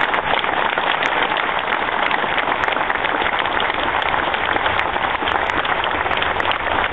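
Crowd applauding: a loud, steady patter of many hands clapping.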